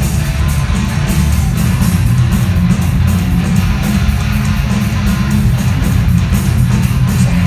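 Live heavy metal band playing loudly: distorted electric guitar over drums, dense and heavy in the low end.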